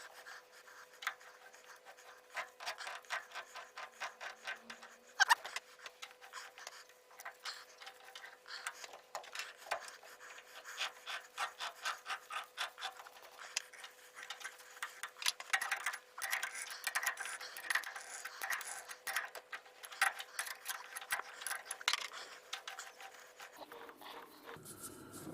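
A thread die biting into a brass fitting as it is turned by hand: a long run of irregular scraping clicks and creaks of metal being cut, over a faint steady hum.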